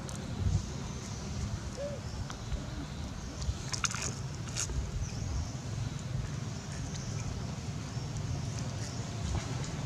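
A macaque crunching on a square cracker, with a few short crisp crunches about four seconds in, over a steady low rumble and a low thump near the start.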